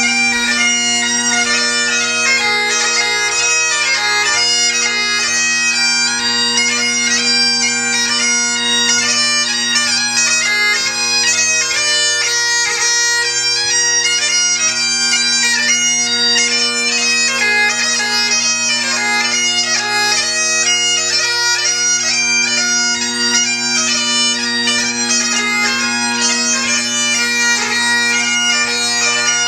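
Great Highland bagpipe played solo. Steady drones sound underneath a quick chanter melody, with short gracenote embellishments between the notes, and the playing never stops.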